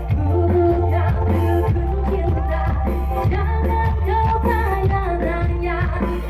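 Music with singing over a heavy, steady bass and a regular beat, played loud through a large sound system.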